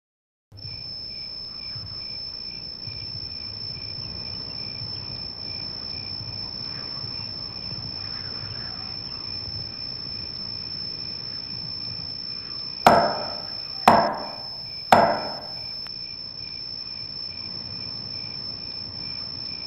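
Three loud knocks on a wooden panelled door, about a second apart, over a steady high-pitched drone of night insects.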